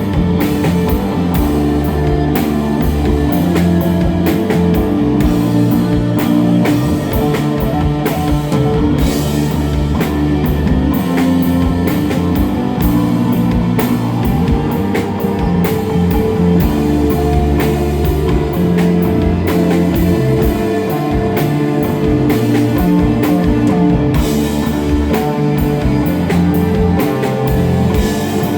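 Live instrumental desert rock band playing steadily and loud: electric guitar over bass guitar and a drum kit.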